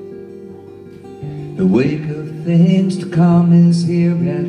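A live song: strummed acoustic guitar with a man's voice. His notes rise about one and a half seconds in and are held through the second half.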